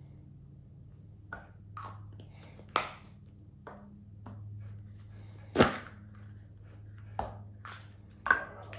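Small airsoft piston cups and heads and their plastic blister tray handled on a wooden table: a series of about seven sharp clicks and knocks, the loudest just past the middle.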